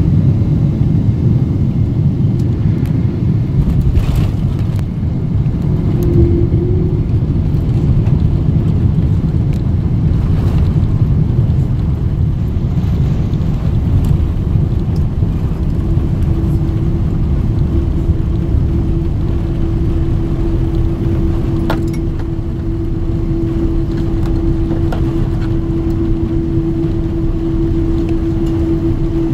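Cabin noise inside a Boeing 777-200 during its landing roll: a loud, steady low rumble of the engines and the wheels on the runway, with a few sharp knocks and rattles. From about halfway through, a steady hum rises above the rumble.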